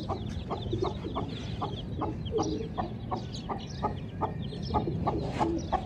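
Broody mother hen clucking steadily, about three short clucks a second, with her chicks peeping faintly.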